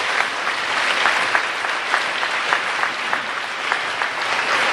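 A crowd applauding: many people clapping steadily.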